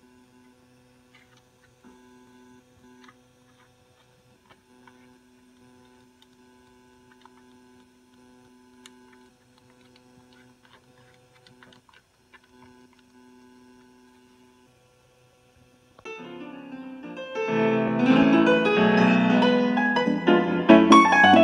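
A faint steady hum, broken off now and then, with small clicks of front-panel buttons. About 16 seconds in, music from a Roland Sound Canvas sound module starts through a portable speaker, with many notes in a keyboard- or harp-like sound that quickly grows loud.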